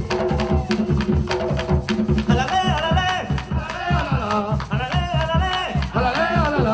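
Colombian mapalé music: fast, driving drumming with a shaker. From about two seconds in, a voice sings short phrases over it.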